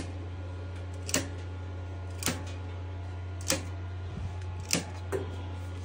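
Switches on a rack of EG4 LifePower4 51.2 V server-rack lithium batteries being flipped on one module after another, giving sharp single clicks about a second apart over a steady low hum.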